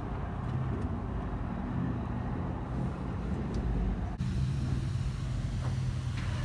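Steady low rumble of an idling vehicle engine, with a few faint ticks; the background changes abruptly about four seconds in.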